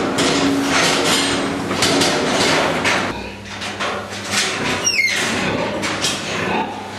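Metal clanking and rattling in a pig farrowing shed, dense for the first three seconds and then more scattered, with one short high squeak falling in pitch about five seconds in.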